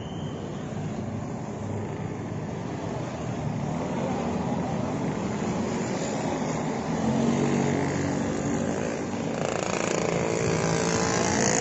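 A bus engine climbing the hill, its hum growing louder as it approaches, stronger from about seven seconds in.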